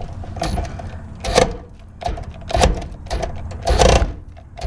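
Tool working loose rusted bolts on the truck's body, in several short bursts of rapid mechanical clatter, the longest near the end.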